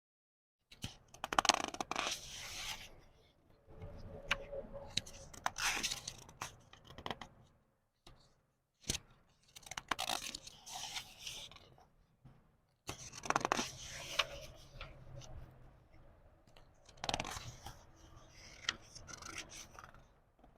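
Book pages turned slowly by hand: paper rustling and sliding in about five separate turns, each a few seconds long with short pauses between, starting just under a second in.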